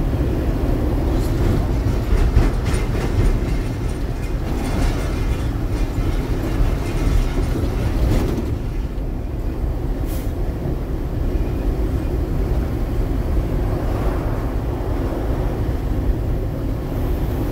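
Inside a truck cab on the move: the diesel engine and tyres give a steady low rumble, with the cab jostling. A short sharp tick sounds about ten seconds in.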